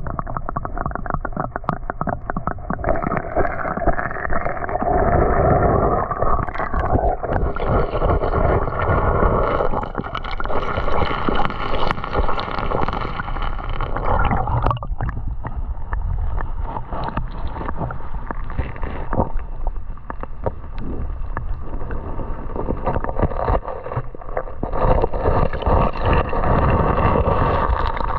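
Creek water sloshing and gurgling close to the microphone as streambed gravel is stirred and washed through the current. It runs continuously, with many small irregular splashes and knocks.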